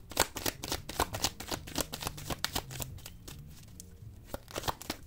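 A deck of tarot cards being shuffled by hand: a quick run of card clicks that thins out after about three seconds, with a few more clicks near the end.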